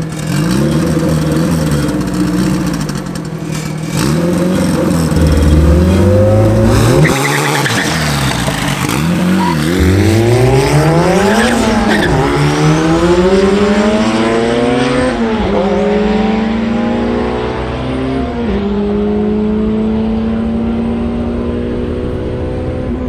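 Turbocharged Honda GSR 1.8-litre four-cylinder in an EG Civic hatch making a drag-strip launch. The revs bounce up and down and bog low on a botched launch that nearly stalls, then the engine pulls hard up through the gears, with three upshifts in the second half.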